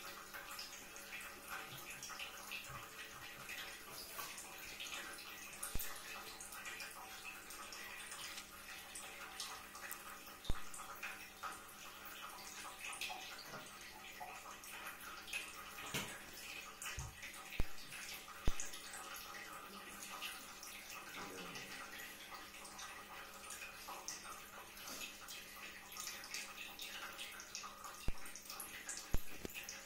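A pug and a cat play-wrestling on a wooden floor: a steady soft crackle of scuffling fur, paws and mouthing, with a handful of sharp knocks scattered through, the loudest just past the middle.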